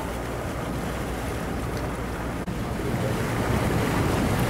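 Water rushing and splashing along the hull of a moving canal boat, with wind buffeting the microphone. It drops out for an instant about halfway through and comes back a little louder.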